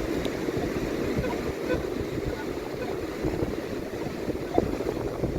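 Surf washing on the beach and wind buffeting the microphone: a steady, dense rumble with no single event standing out.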